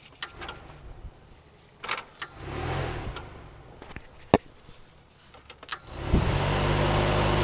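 Nissan Sentra's electric radiator cooling fan, switched through a newly wired relay: a few clicks as a terminal is touched on, a brief burst of fan noise about two and a half seconds in, a sharp click past four seconds, then the fan starts near six seconds and runs steadily with a low hum and a rush of air.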